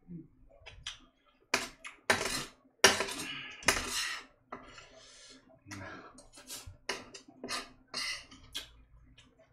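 Cutlery scraping and clinking against a dish: a run of longer scrapes in the first half, then a string of shorter taps.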